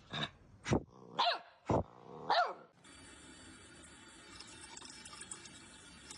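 A dog barking: five short barks in quick succession, two of them sliding down in pitch, then the sound cuts to a faint steady hiss about three seconds in.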